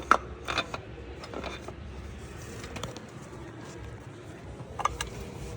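A few light metallic clicks and taps as a new distributor is lowered into the engine and turned to mesh with the camshaft gear, over a low steady hum.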